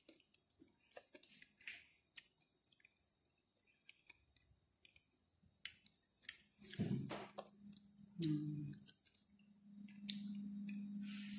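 Faint mouth sounds of someone eating chocolate cake: soft chewing with scattered small lip and tongue clicks. A steady low hum comes in near the end.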